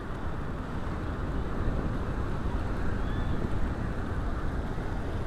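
Wind buffeting the microphone over a steady rush of surf and moving water.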